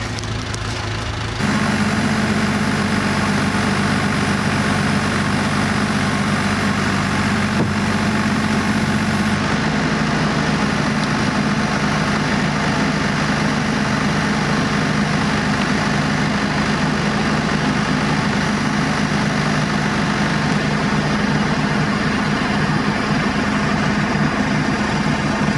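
JCB backhoe loader's diesel engine running and working its hydraulic boom to lift a framed wall on a strap. The engine note rises sharply about a second and a half in as the throttle comes up, then holds steady.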